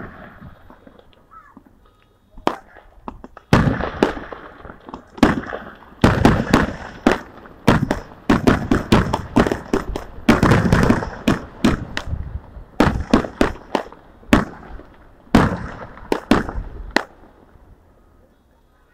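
Fireworks show: aerial shells going off in a rapid barrage of sharp bangs with crackling between them, densest in the middle and stopping about two seconds before the end.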